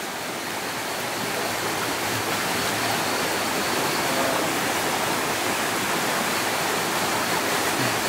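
Stream water rushing steadily down over rocks in a small cascade, growing a little louder over the first few seconds.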